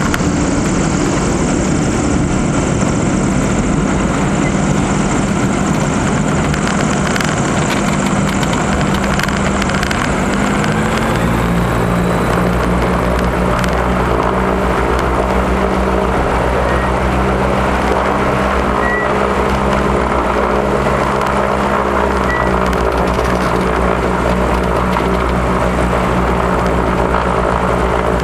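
Diamond DA42 Twin Star's twin propeller engines running at low power, heard from inside the cabin as the aircraft rolls and taxis. About ten seconds in the rushing noise eases and a steady hum of evenly spaced engine tones takes over.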